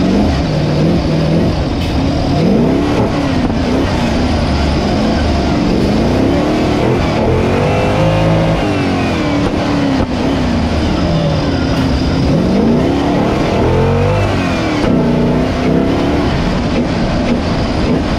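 Off-road 4x4 competition vehicle engines revving up and falling back again and again over a steady engine rumble.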